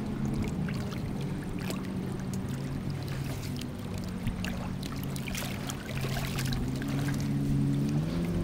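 An engine drones steadily, its pitch stepping up slightly near the end, with light clicks and scrapes of plastic toys handled on sand.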